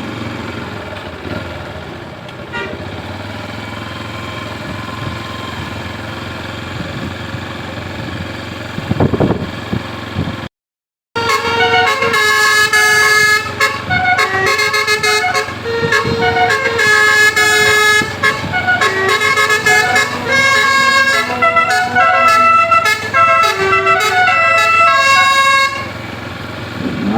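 A tour bus's Basuri telolet horn, a multi-tone air horn, playing a quick tune of changing notes for about fifteen seconds and stopping shortly before the end. Before it, about ten seconds of steady vehicle running noise, then a brief break in the sound.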